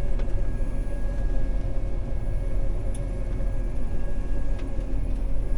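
John Deere 9400 combine running steadily under load, with a steady whine over the engine rumble and three faint clicks.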